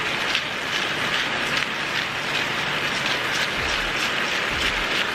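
Chicken pieces in sauce sizzling steadily in a frying pan, with the faint crunching of a hand-twisted pepper grinder over the pan.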